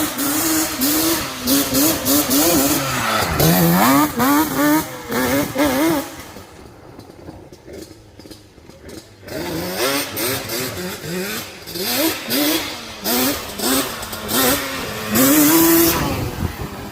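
Yamaha Banshee ATV's twin-cylinder two-stroke engine revving up and down as it is ridden, its pitch climbing and falling with the throttle and gear changes. It fades for a few seconds near the middle, then comes back loud.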